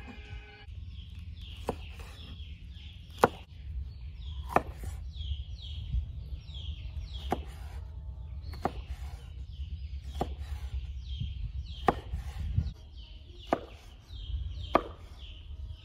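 A kitchen knife cuts carrots on a wooden cutting board. Sharp single chops land on the board about once every second and a half, about ten in all.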